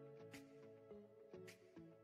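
Quiet background music: soft melodic notes over a light beat, with a crisp tick a little more than once a second.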